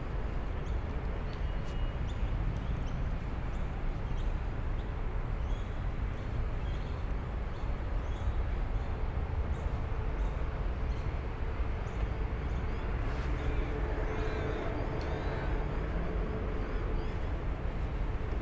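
City park ambience: a steady low rumble of urban traffic, with faint scattered bird chirps. A steady hum grows louder in the second half.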